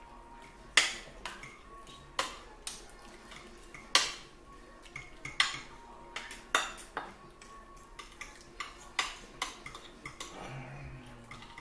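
Eating utensil clinking and scraping against a plate in irregular sharp strikes, a dozen or so, some of them loud.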